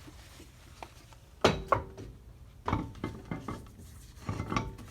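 Metal clanks and knocks from a car wheel and its lug nuts being handled and fitted onto the front hub, a few sharp strikes with a brief metallic ring.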